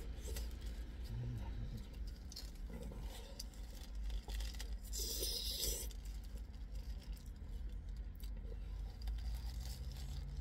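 Eating sounds: chewing and the crinkling of a paper food wrapper, with one louder rustle about five seconds in, over a steady low rumble inside a car.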